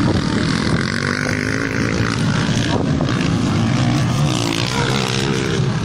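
Motocross dirt bikes' engines revving on the track, rising and falling in pitch, under a steady low rumble of wind buffeting the microphone.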